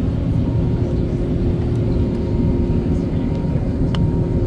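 Steady engine and airflow noise heard inside the passenger cabin of an Airbus A380 in flight: a dense low rumble with a steady hum running through it. A brief click comes about four seconds in.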